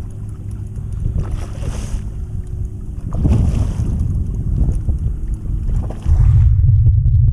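Strong wind buffeting the microphone, a low rumble that grows louder about three seconds in and louder again about six seconds in, over the splashing of a hooked fish thrashing at the water's surface.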